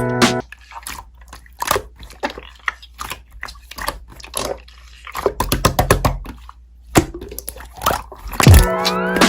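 Slime being squeezed and pressed by hand, with irregular wet clicks and pops. Background music drops out about half a second in and comes back near the end.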